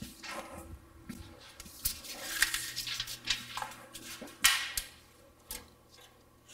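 Steel tape measure being pulled out and handled against a tall strip of sheet metal: scattered scrapes, rattles and sharp clicks, the sharpest about four and a half seconds in, over a faint steady low hum.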